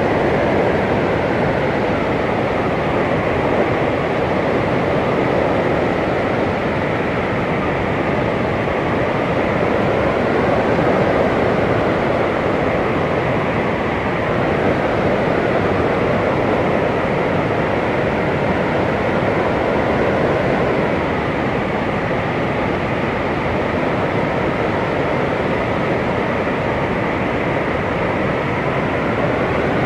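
Blizzard wind blowing hard and steadily, a dense rushing roar with a faint howl that slowly wavers in pitch.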